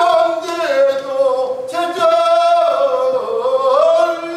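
A man singing pansori, unaccompanied: long held notes that slide and bend in pitch, in several phrases with short breaks between them.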